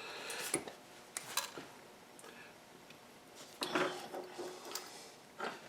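Scattered light metallic clinks and taps of small steel tools and tooling being handled and set down, with one clink about two-thirds through ringing briefly; no machine is running.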